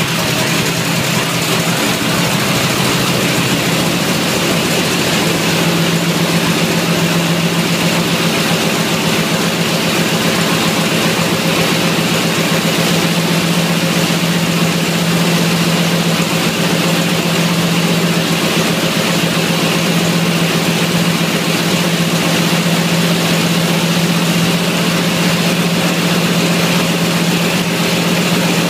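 Seven-cylinder Jacobs R-755 radial aircraft engine running steadily on a test stand during a bench test, its propeller turning. The sound grows slightly louder about five seconds in.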